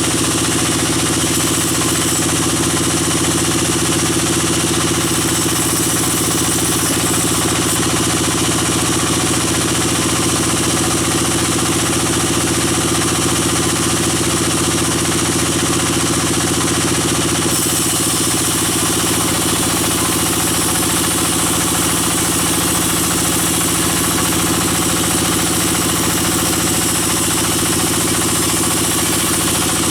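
Sawmill machinery running steadily: a band saw and its drive engine, a constant mechanical drone with a slight shift in tone about two-thirds of the way through.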